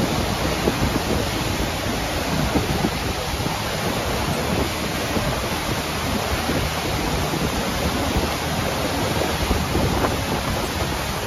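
Whitewater cascade below Lower Yosemite Fall rushing steadily over boulders, a continuous loud roar of water.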